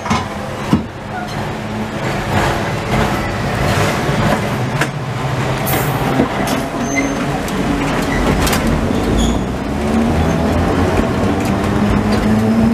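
Vintage tram running on street track, heard from the cab. Its motors and gearing hum steadily while the wheels click and knock over rail joints and points. The hum rises slightly in pitch near the end as the tram gathers speed.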